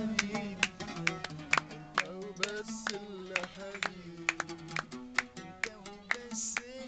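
An oud played live, with a voice singing along and hand claps keeping a steady beat of about two to three a second.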